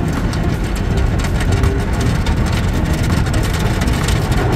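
Automatic tunnel car wash heard from inside the car: water spraying onto the windshield and body with many small ticks, over a loud steady low rumble of the wash machinery.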